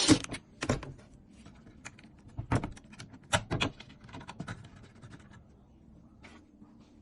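Irregular light clicks and knocks, with a few louder ones in the first four seconds and fainter ticks after.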